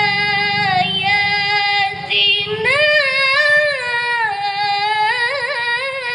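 A woman reciting the Qur'an in melodic tilawah style with a high voice, drawing out the word "bi-ayatina" in long held notes. The pitch steps up a little before halfway, and quick wavering ornaments come near the end.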